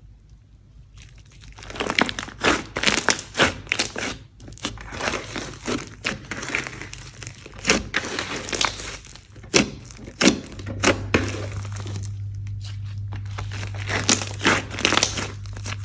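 Slime being squished and stretched by hand, giving dense, irregular crackling and popping, starting about a second and a half in. A steady low hum joins partway through.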